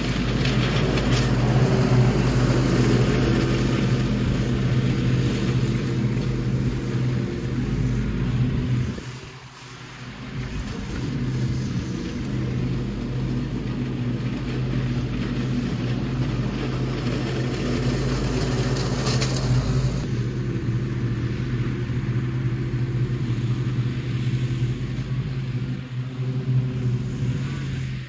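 Small gasoline engine of lawn-care equipment running steadily at high speed. It eases off briefly about nine seconds in, then picks back up.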